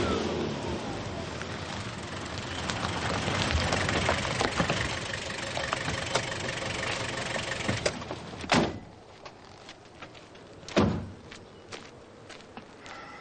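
A four-wheel-drive vehicle's engine running as it drives over a rough road, then going quiet about eight seconds in. Two car doors then slam, a couple of seconds apart, followed by light footsteps.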